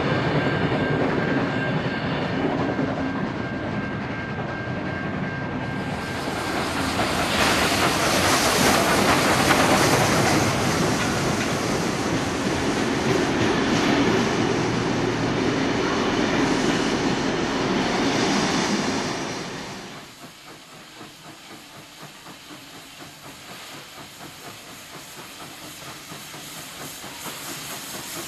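A train of passenger carriages running past, with the wheels clicking over the rail joints, louder and fuller from about six seconds in. At about twenty seconds it drops abruptly to a much quieter train sound that grows steadily louder toward the end.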